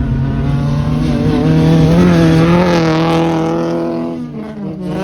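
Rally car passing at speed on a gravel track: its engine note steps up about a second and a half in, swells with a hiss of tyres and gravel to its loudest around two to three seconds in, then drops in pitch and fades as it goes away.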